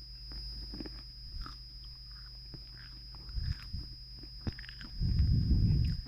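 Close-up eating sounds: small crunches and mouth clicks of someone biting and chewing fast food, with a louder low rumble for about a second near the end.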